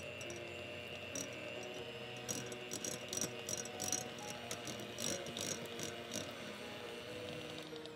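Electric hand mixer running at medium speed with a steady thin whine, its wire beaters whipping softened butter and clicking repeatedly against a glass bowl. Soft background music plays underneath.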